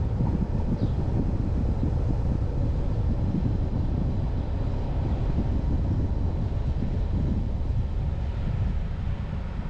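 Steady low rumble of wind buffeting the microphone and road noise from a car driving slowly. About a second in there is a faint, short, high chirp.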